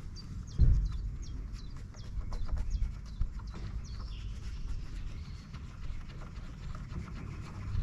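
Handling noise from a gloved hand working at a Vespa PX's rear turn-indicator housing and its contacts: small clicks and taps, with a thump about half a second in, over a low rumble.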